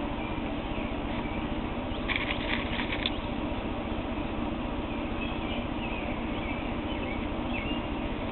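Cotton fabric rustling and crinkling as its edge is folded under and pinned by hand, loudest in a short burst about two seconds in, over a steady hiss.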